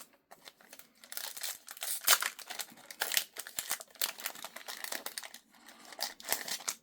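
Foil play booster pack wrapper crinkling and being torn open, a run of irregular crackles and rustles.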